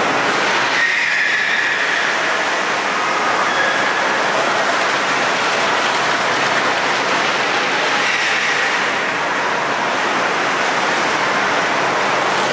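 Steady rushing noise of a departing cruise ship: churning water and ship machinery, with faint high whining tones over it about a second in and again later.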